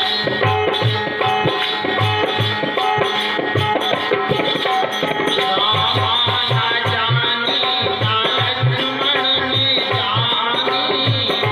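Indian devotional folk song accompaniment: a tabla-like hand drum keeping a steady beat under a wavering melody line.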